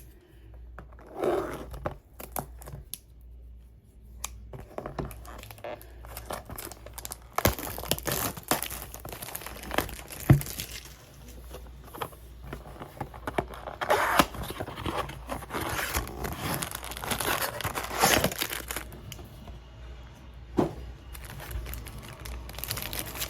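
Plastic wrapping on a trading-card blaster box being torn open and crumpled: irregular crinkling and tearing with sharp clicks and rustles, busiest in the middle.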